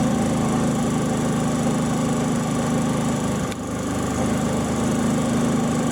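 Brand-new Harbor Freight Predator 3500-watt inverter generator running steadily on its first run, its small single-cylinder engine pretty quiet. A brief click about three and a half seconds in.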